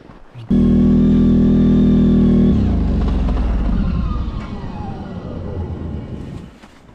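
CFMoto 1000 ATV engine running while riding, starting abruptly about half a second in with a steady note. About two and a half seconds in the note turns rougher and glides downward, fading to quiet near the end.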